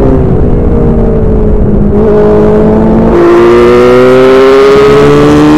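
Open-wheel formula race car's engine heard from the cockpit: its note falls while off the throttle, with a small jump in pitch about two seconds in. About three seconds in the throttle opens, the engine gets louder and its pitch climbs steadily as the car accelerates.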